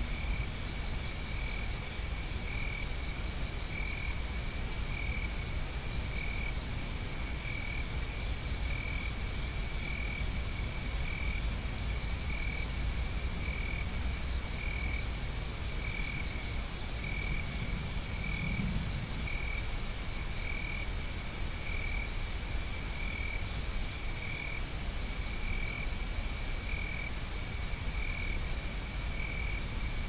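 A frog calling with a short, even note repeated a little more than once a second, over a steady hiss.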